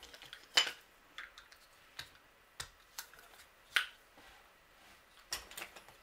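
Hard plastic vintage Fisher-Price Construx pieces handled and pushed together, giving about half a dozen separate sharp clicks, the loudest about half a second in and just before the four-second mark: the click of a piece locking into place.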